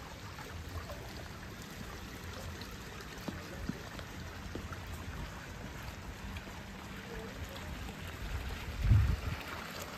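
Water trickling and splashing from small fountain jets along a stone garden water channel, a steady faint wash of sound over a low rumble. A brief low thump comes near the end.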